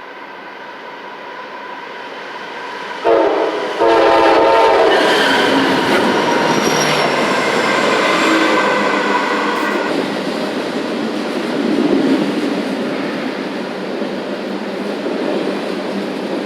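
Norfolk Southern intermodal freight train approaching and passing, the noise building steadily. About three seconds in, its locomotive horn sounds a short blast and then a longer one, which fades over several seconds into the steady rumble of the train going by.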